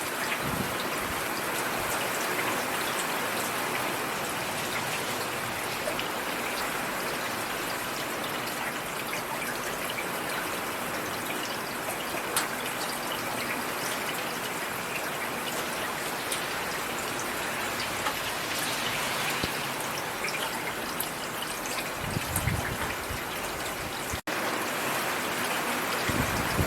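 Steady rain falling, with scattered sharper drop ticks through it. Near the end there is a short low rumble, and the sound cuts out for an instant.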